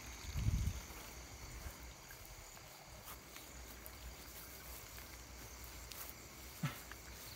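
Night insects trilling steadily in high, even tones. A low muffled thump about half a second in, and a short knock near the end.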